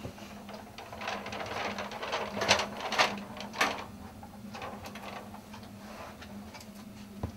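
Scattered clicks, knocks and rustles of film gear being handled and adjusted on a tripod, over a steady low hum, with the busiest handling noise a few seconds in.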